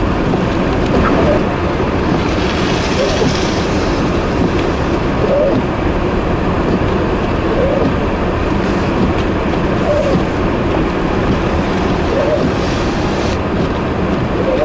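Vehicle on the move: a steady, loud rumble of road and engine noise, with a faint short squeak about every two seconds.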